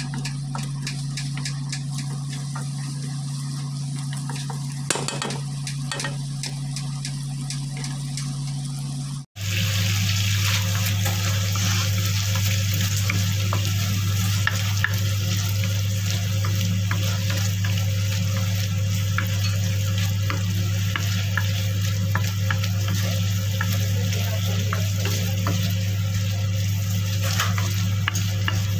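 Chopped garlic, onion and tomato sizzling in oil in a wok while a wooden spatula stirs and scrapes them, over a steady low hum. The sound drops out for an instant about nine seconds in and comes back louder.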